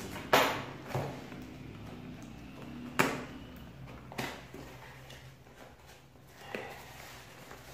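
A small cardboard box being opened by hand on a wooden table, with several sharp snaps and knocks from the flaps and the packaging and quieter handling noise between them.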